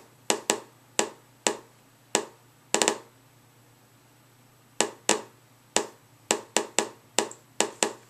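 Inspector EXP Geiger counter clicking at random intervals, about two counts a second with a quick run of several clicks about three seconds in. It is counting the betas and gammas from the americium-241 source in a smoke detector, and the count is low because the casing blocks almost all of the radiation.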